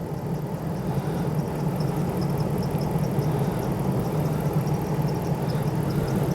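2009 Ram 1500 pickup's engine idling steadily at operating temperature, growing slightly louder, while its cooling system is bled; the thermostat has just opened.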